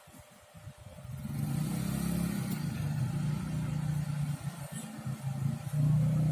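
A motor or engine starts up about a second in and runs on steadily with a low hum, getting louder near the end.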